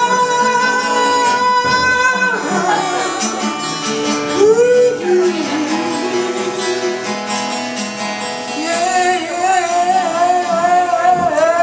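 Acoustic guitar strummed under a man's singing in a live folk-rock song. He holds one long steady note for about the first two seconds, then sings sliding, wavering lines, with a long wavering note near the end.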